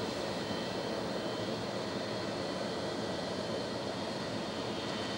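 Boeing 727-200 freighter's three Pratt & Whitney JT8D turbofans running at low thrust as the jet taxis: a steady rumble with a thin, high-pitched whine held over it.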